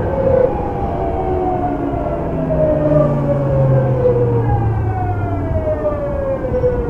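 Tokyu 9000 series train's early Hitachi GTO-VVVF inverter and traction motors whining in several tones that slide steadily down in pitch as the train slows under braking, over the rumble of the running gear. About four and a half seconds in, a fresh set of higher tones joins and slides down as well.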